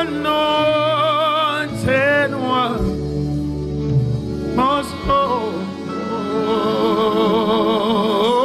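Slow gospel worship song: a singer holds several long notes with wide vibrato over a steady, sustained instrumental backing, the last note held for about two seconds near the end.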